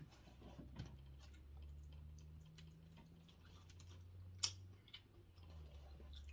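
Faint eating sounds: scattered small mouth clicks and smacks from chewing food, with one sharper click about four and a half seconds in, over a low steady hum.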